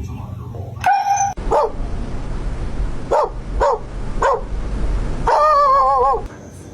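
A dog barking: a couple of short high calls, then three short barks about half a second apart, then a longer wavering howl-like call near the end.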